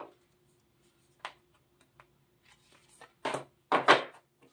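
A deck of oracle cards being shuffled by hand. There is a light tap about a second in, then two louder rustling slaps of the cards in the last second and a half.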